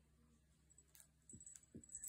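Near silence, with a few faint soft thumps and scuffles in the second half from two kittens wrestling on a rug.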